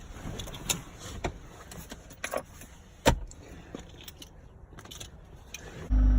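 Keys jangling and clicking, then near the end the Acura TL Type S's V6 engine starts and settles into a steady, loud low run.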